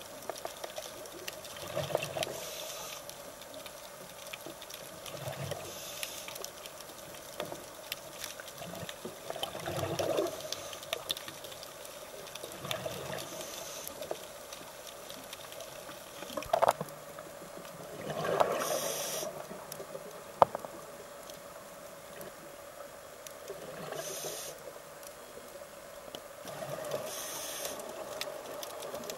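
Underwater scuba breathing through a regulator: a hiss on each breath and a rush of exhaust bubbles, repeating every few seconds, with a couple of sharp clicks in between.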